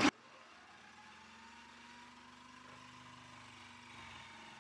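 Parkside wood lathe running steadily, its motor giving a faint, even hum with a thin steady tone, slightly louder near the end.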